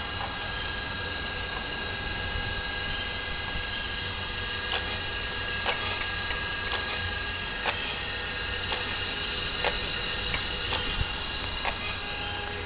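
Okamoto surface grinder running: a steady motor whine over a low hum. From about five seconds in, sharp clicks come roughly once a second.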